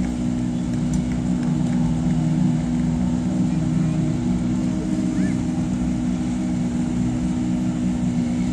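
Rally car engines idling steadily, a constant low hum, with spectators chatting.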